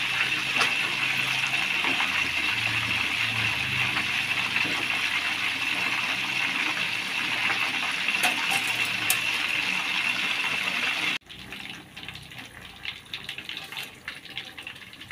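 Whole gurame fish deep-frying in a wok of hot oil: a steady, loud sizzle as it fries toward crispness. About eleven seconds in, the sizzle cuts off suddenly and gives way to a quieter, sparser crackle of bubbling oil.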